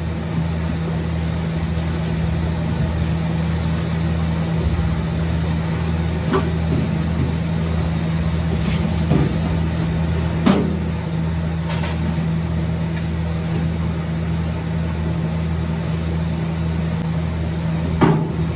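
A machine running with a steady low hum, broken by a few short knocks, one about six seconds in, one near nine seconds, one about ten and a half seconds in and one near the end.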